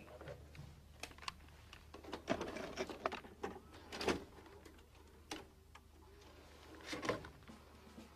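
Irregular light taps and clicks, coming in loose clusters, over a faint steady low hum.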